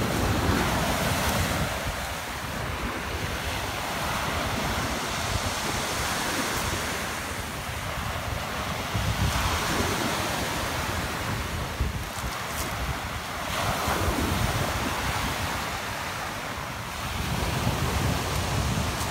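Surf breaking and washing up a pebble beach, the noise swelling and falling every few seconds, with wind buffeting the microphone.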